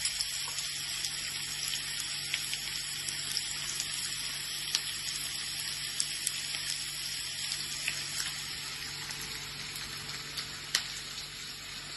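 Chopped onion, garlic and green chili sizzling in oil in a non-stick pan, a steady frying hiss. A few sharp clicks sound over it, from kitchen scissors snipping red chili.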